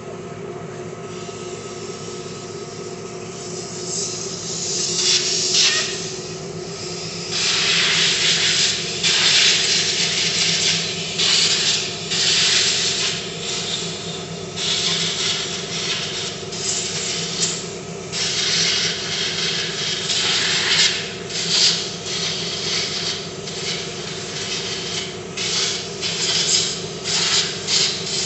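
Compressed-air blow gun blasting in repeated bursts of hiss, some short and some lasting a second or two, starting about four seconds in. It is blowing dirt off a diesel tractor's cylinder head around the injectors before they are removed. A steady low hum runs underneath.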